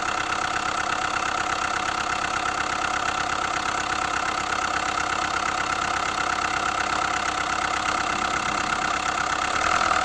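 Hyundai i20's four-cylinder common-rail diesel engine idling with a rapid, even ticking clatter, a little louder near the end. It is the abnormal engine noise that has persisted even after the connecting-rod bearings, hydraulic lash adjusters and timing chain were replaced, its cause not yet found.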